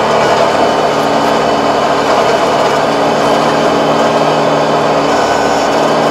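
Tractor diesel engine running steadily under load while a rear-mounted Kobashi rotary tiller churns through soil.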